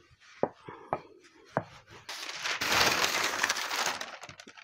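A few light knocks on a wooden pastry board, then a sheet of parchment baking paper rustling and crinkling for about two seconds as it is handled, louder than the knocks.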